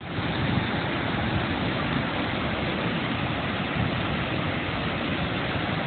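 Cumberland Falls: the steady rushing of a wide river pouring over a rock ledge. It is an even, unbroken noise with a heavy low rumble.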